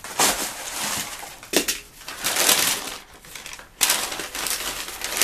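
Newspaper packing crumpling and tearing as it is pulled off a parcel by hand, in irregular bursts, with a brief lull about three seconds in.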